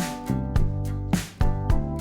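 Background music with a steady beat: sustained pitched notes punctuated by regular drum hits.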